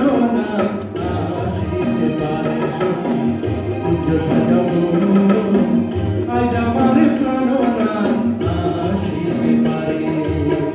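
Background music: a song with voices singing over steady percussion.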